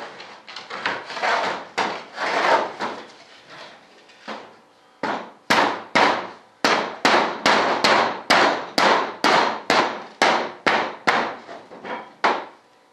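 Quick series of short scraping strokes worked by hand on a molded RC-jet vertical stabilizer. They are uneven at first, then settle to a steady two to three strokes a second from about five seconds in, stopping near the end.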